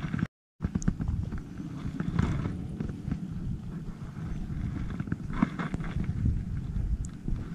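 Wind buffeting the microphone, a gusty low rumble with a few faint clicks. The sound cuts out completely for a moment about half a second in.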